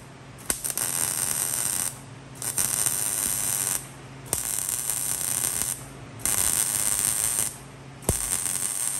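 MIG welder arc crackling in repeated short bursts, about five passes of a second or so each with brief pauses between, as a frame box is stitch-welded to the car's steel underbody.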